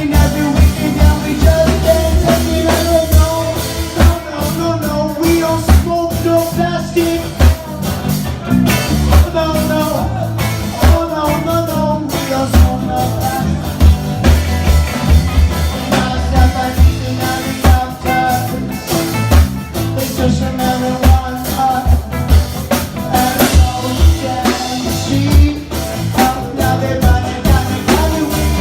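A live band playing a reggae song, with a drum kit keeping a steady beat under bass and guitar and a melodic lead line on top.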